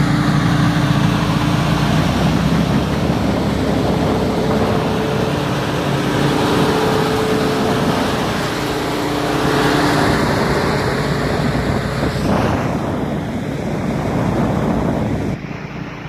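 Stone-crushing plant running: crusher and conveyor machinery making a loud, steady grinding drone with a low hum. Near the end the noise drops suddenly to a quieter, duller rumble.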